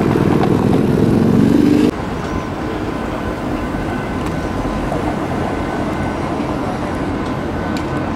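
City street traffic noise as a green-and-yellow articulated Helsinki tram passes, with a faint steady whine. The level drops suddenly about two seconds in.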